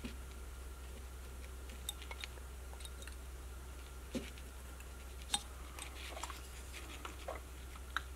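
Small carving knife cutting a basswood carving by hand: faint scattered clicks and scrapes as stop cuts are made and slivers shaved out, with a few sharper ticks.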